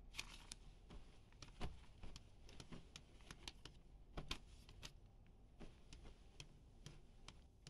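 Faint rustling and soft taps of cloth and paper-wrapped parcels being handled and stacked on a wooden table. A few knocks stand out slightly, about one and a half seconds in and again about four seconds in.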